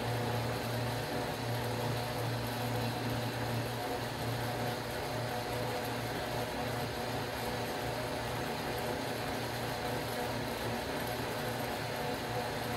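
KitchenAid K400 blender running steadily at low speed (setting 2), its motor humming evenly as it blends a liquid almond-and-strawberry mix.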